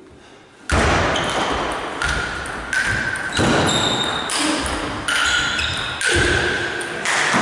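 Table tennis rally: the celluloid ball struck by the bats and bouncing on the table, a sharp hit about every second with a short ringing tone after each, echoing in a large hall.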